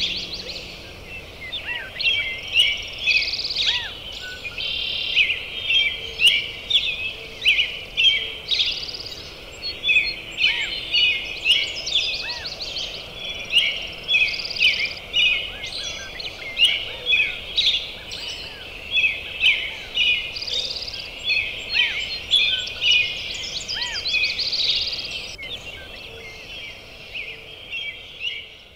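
A chorus of songbirds singing and calling over one another, with many rapid chirps and trills, fading out near the end.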